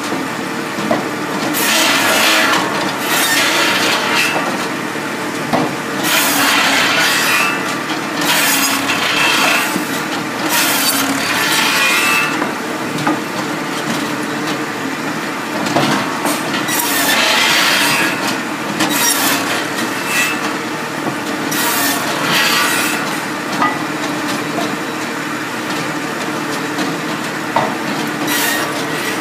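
Posch SmartCut 700 automatic gravity-fed circular firewood saw running steadily while its blade cuts a log into rounds. Each cut is a rasping burst over the steady drone of the machine, repeating every second or two.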